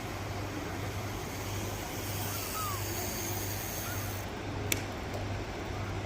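Steady outdoor noise of road traffic, with a couple of short faint chirps and one sharp click about three-quarters of the way through.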